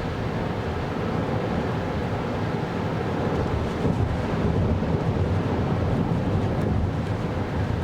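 Steady low road and tyre rumble of a 2024 Kia Carnival Hybrid minivan driving on a snowy road, swelling slightly about halfway through.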